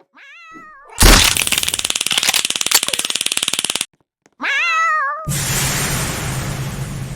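A cat meows, short calls with a falling, wavering pitch, once near the start and again about four and a half seconds in. Between and after the meows come loud, harsh noisy stretches, the first with a fast, even pulsing.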